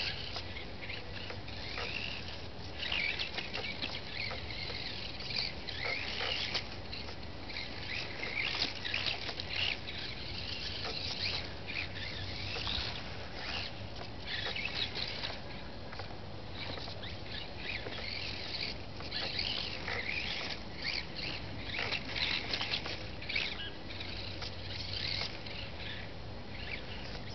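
Micro RC car's tiny electric motor whirring in short, irregular bursts as it is driven around a dirt track.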